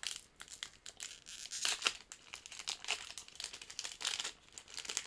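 Wrapper of a trading card pack crinkling as it is torn open by hand, in irregular bursts, the loudest a little under two seconds in.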